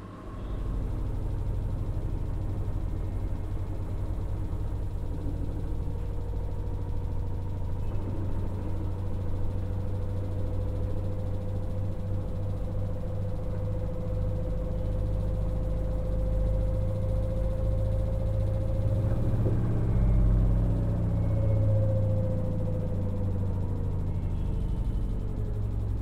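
LG FHT1208SWL direct-drive front-load washing machine tumbling laundry in its rinse cycle: a steady motor hum and low rumble. A faint whine slowly rises in pitch, then falls away about three-quarters of the way through, as the rumble swells briefly.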